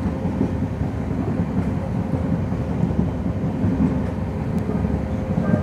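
Indian Railways passenger train (Ujjani Express) running at speed, heard from an open coach doorway: a steady low rumble of the coach on the track, with a faint steady tone and a few light ticks.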